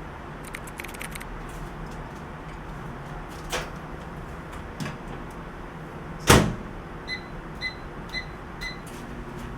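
Car with its engine running steadily, a few light clicks and one loud thump about six seconds in, then five short high electronic beeps about two a second.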